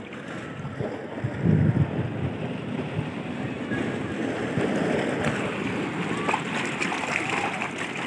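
Seawater washing and swirling over a rocky shore and through shallow rock pools, with wind buffeting the microphone about a second and a half in. The wash grows louder in the second half as a wave foams in over the rocks.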